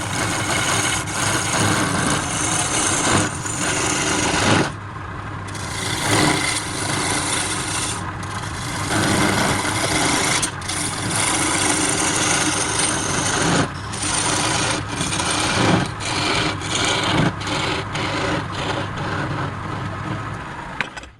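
Woodturning lathe running, its motor giving a steady low hum under the rough, rasping scrape of the spinning wood being worked. The scraping eases off briefly a few times and stops near the end.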